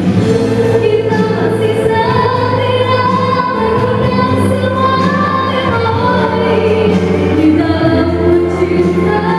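A woman singing a song into a handheld microphone, amplified, over steady instrumental accompaniment.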